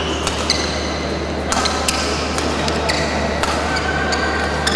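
Badminton rally in an indoor hall: a string of sharp racket strikes on the shuttlecock, with long squeaks of shoes on the court, over a steady hall hum.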